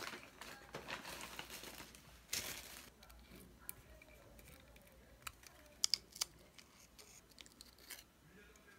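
Zeiss Ikon Taxona camera body being handled as its black covering is pried up and peeled away: scratchy rustling, a louder scrape about two and a half seconds in, then several sharp little clicks, three of them close together a little before the middle of the second half.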